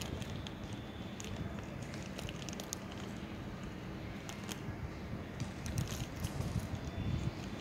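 Scattered crinkles and crackles of a foil snack bag as a hooded crow pecks at it and tugs it across the paving, over a steady low rumble.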